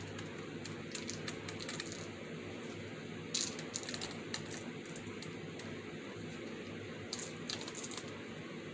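Light, irregular clicks and ticks as gloved fingers pick up small fake sprinkles and set them onto a foam craft piece, over a steady low hum.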